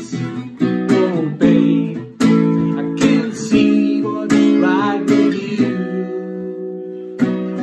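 Acoustic guitar strummed in a steady rhythm, chords ringing between strokes. Near the end a chord is left to ring for a second or so before the strumming starts again.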